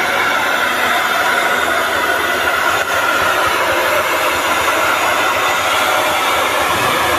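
Loud, steady hiss of noise from a carnival sound system being tested, with the sound mostly in the middle and upper range and little bass.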